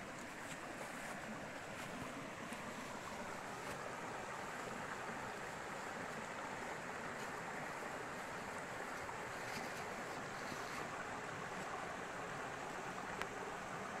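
Small mountain stream running and splashing over rocks in little cascades, a steady rush of water.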